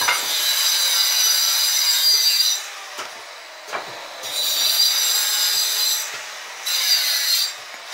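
High-pitched metal squealing and scraping as the plunge router base's column pipe is scraped clean of caked dirt, coming in three stretches, with two sharp knocks in a quieter gap about three seconds in.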